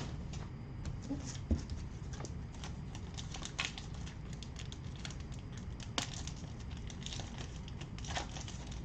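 A pack of trading cards being opened and handled by hand: scattered faint crinkles of wrapper and small clicks of cards, with a sharper tick about a second and a half in and another about six seconds in.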